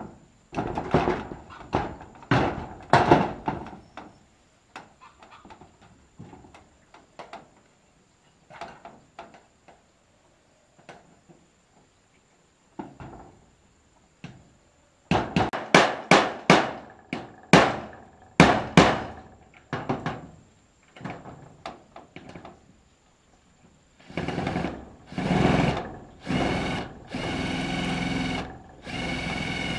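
Hand tools working wood: a string of irregular knocks and scrapes, then from about 24 s in, longer drawn-out strokes that ring with a tone.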